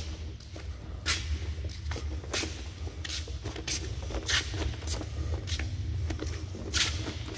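Footsteps scuffing on the gritty concrete floor of a storm drain tunnel, an uneven slow walk with a step about every second, over a steady low rumble.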